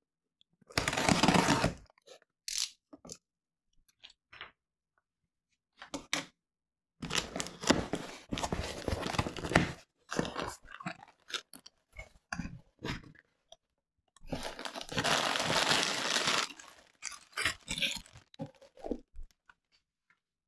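A cardboard shipping box being opened: a box cutter slits the packing tape, then the cardboard flaps are pulled open and the packing inside is handled. Three long stretches of tearing, scraping noise, with short knocks and rustles between them.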